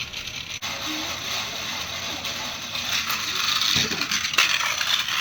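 Wind-up Energizer launcher of an Evel Knievel Stunt Cycle toy being cranked: a rapid, continuous ratcheting of plastic gears.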